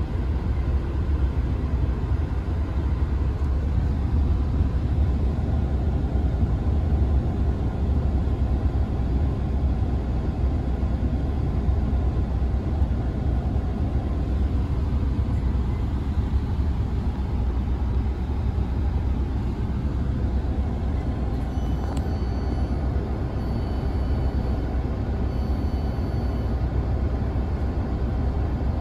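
Inside a Class 166 'Turbo' diesel multiple unit: a steady low rumble from its six-cylinder turbo-diesel engines and running gear as the train draws into a station and comes to a stand. A faint high-pitched tone sounds on and off in the last several seconds.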